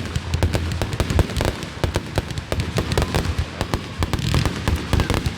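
Consumer fireworks going off: a dense, rapid string of sharp pops and crackles, many a second without a break.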